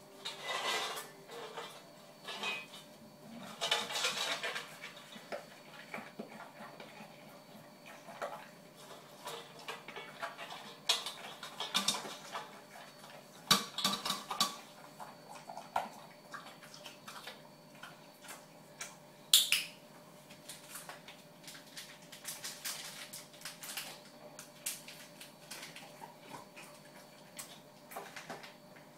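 An English Bulldog eating from a food bowl on a tiled floor: the bowl clinks, knocks and scrapes in scattered irregular strokes as he eats, the loudest about 13 and 19 seconds in.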